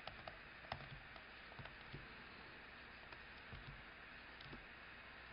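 Near silence: a low steady hiss with faint, irregular clicks and taps from a stylus writing on a tablet.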